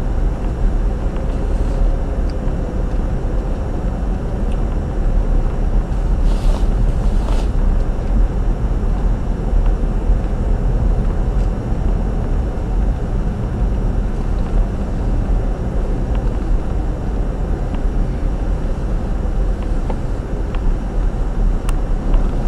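Steady low rumble of a car driving, tyre and engine noise heard inside the cabin, with two short knocks about six and seven seconds in.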